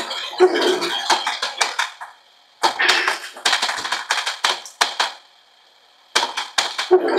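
TOMY Galaxy Pinball tabletop toy pinball machine in play: rapid plastic clicking and rattling from the flippers and the small balls knocking around the playfield. The clicking comes in three bursts, the first breaking off about two seconds in, the second from under three seconds in to about five seconds in, and the last starting near the end.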